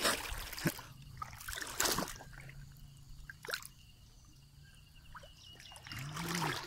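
Water splashing and trickling at the surface of a flooded field, where a hooked fish hangs on a set line. There are several short splashes in the first two seconds, then only faint dripping.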